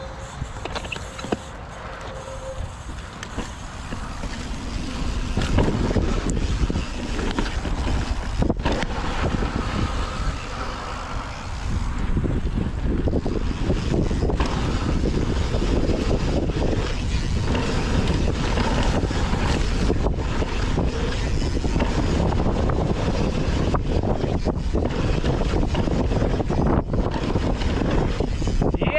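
Wind buffeting the microphone over the rolling tyre noise and clatter of a mountain bike riding a dirt trail, with frequent short knocks from bumps. It grows louder about five seconds in and stays loud.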